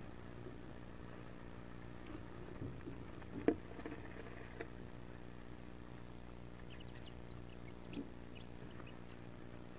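Wood duck ducklings shifting and scrabbling on the nest-box floor, with a sharp bump about three and a half seconds in and a few faint, short high peeps in the second half, over a steady low hum.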